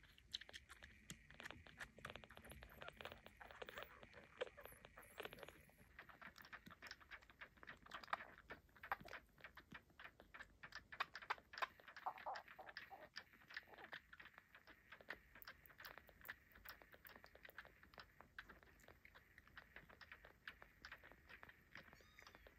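Faint, quick, wet clicking and smacking of a newborn kitten suckling on a feeding-bottle nipple, many small clicks a second.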